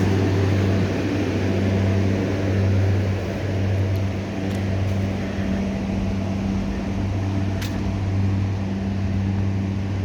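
A generator engine running steadily: a constant low hum that holds one pitch throughout.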